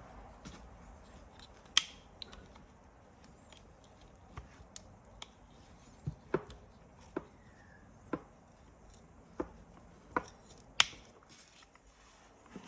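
Scattered sharp clicks and small snaps of pliers and tools working at the plastic clips and hooks of a Toyota Hilux seatbelt retractor's cover, about a dozen in all, the loudest about two seconds in and again near the end.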